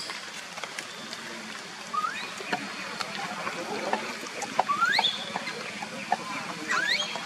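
Baby macaque crying: three short, high squeals that rise in pitch, about two seconds apart, with a few light ticks between them.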